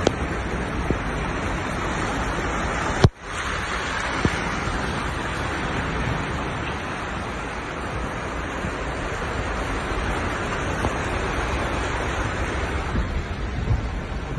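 Steady rushing noise of floodwater and rain, with a single sharp click about three seconds in.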